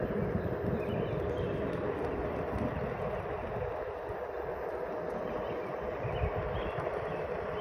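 Onewheel Pint rolling over rough pavement: a steady hum from its hub motor over a rough rumble from the tyre on the concrete, easing a little midway.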